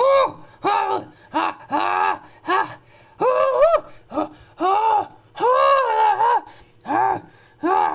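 A human voice making a run of about a dozen short, pitched grunting calls as a primitive ape-man or cavewoman creature sound effect; the calls rise and fall in pitch, and two of them, near the middle, are held longer.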